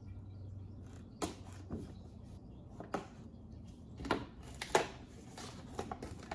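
A cardboard model-horse box with a plastic window being opened by hand: about six sharp snaps and rustles, roughly a second apart, as its flaps are pried and pulled open.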